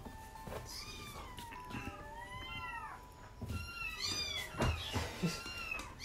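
Young kittens mewing over and over, with many short, high, arching cries that overlap. The cries grow busier and louder in the second half.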